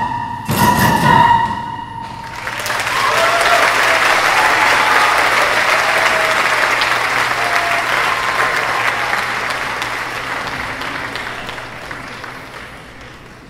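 A choir's last loud sung notes with a stamp break off about a second and a half in, and an audience bursts into applause with a few cheers. The applause fades away steadily toward the end.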